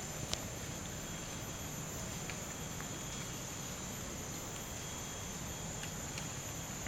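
Forest insects keeping up a steady, high-pitched drone, over a low rumble, with one sharp click about a third of a second in.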